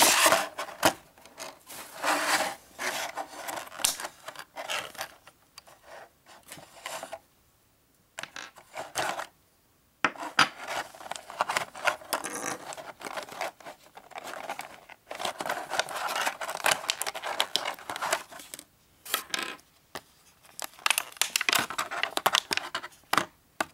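Thin plastic blister tray crinkling and scraping as small plastic and metal top parts are pried out of it by hand, with small clicks among the rubbing. The sound comes in irregular bursts with a few short pauses.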